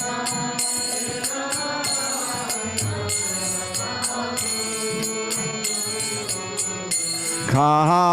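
Kirtan singing of a Bengali devotional song: voices sing the melody while small hand cymbals ring in a steady beat, about two to three strokes a second. Near the end a single loud male lead voice comes in with the next line.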